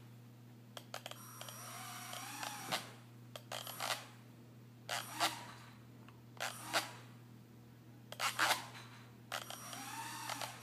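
Border collie whining in short rising-and-falling whimpers, about two seconds in and again near the end, with several short sharp noises in between.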